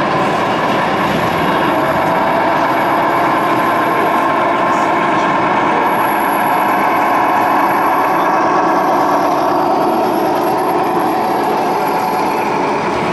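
Radio-controlled semi truck's sound module playing a diesel truck engine running steadily as the model drives slowly past.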